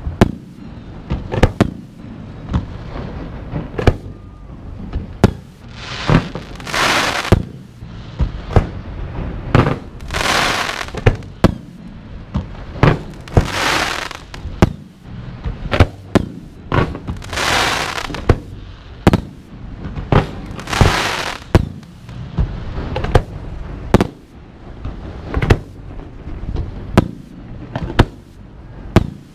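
Fireworks going off: a steady run of sharp booms and reports from aerial shells and multi-shot cakes, several a second at times. Through the middle come five rushes of hiss, each about a second long and a few seconds apart.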